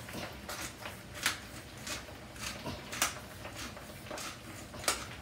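Hand pepper mill grinding a five-berry peppercorn blend, a short crunching rasp with each twist, about two a second.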